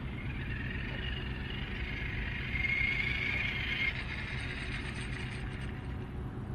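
A 3D-printed Tarmo4 RC car's brushless motor and gear drivetrain whining as it drives, swelling to its loudest between about two and four seconds in and then fading. Steady wind rumble on the microphone runs underneath.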